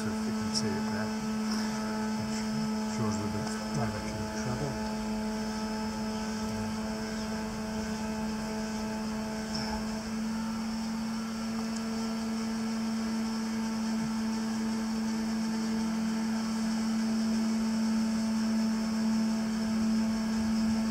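A steady hum on one constant low note, with fainter higher tones held above it.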